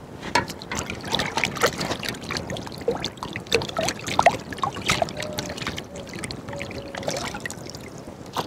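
Water splashing and trickling as hands swish raw lobster meat around in a pot of water to rinse it, with drips falling back into the pot.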